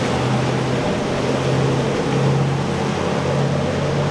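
Motorboat engine running steadily, a low drone over a constant wash of wind and water.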